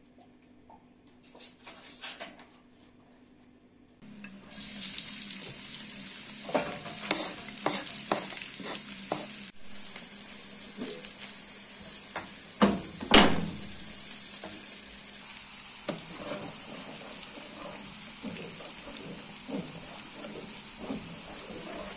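Chopped onions sizzling in hot oil in a frying pan, stirred with a wooden spoon that scrapes and knocks against the pan. The sizzling starts suddenly about four seconds in, and two sharp knocks come just past the middle.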